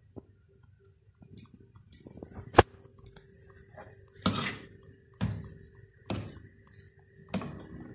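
A metal spoon working semolina halwa in a steel pan: one sharp clink of spoon on pan, then four short scrapes about a second apart. A faint steady hum runs underneath.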